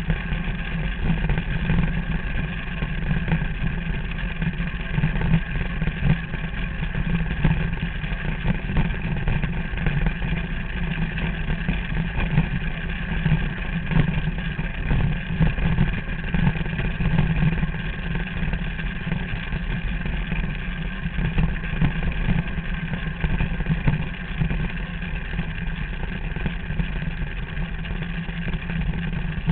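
Derny's small engine running steadily, with no break or change in speed.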